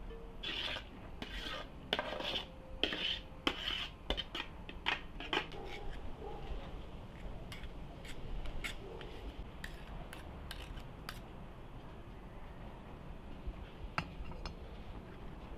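Metal spoon scraping and clinking against an aluminium cooking pot and a metal colander as rice is spooned into the pot: a quick run of scrapes in the first few seconds, then a few scattered clinks.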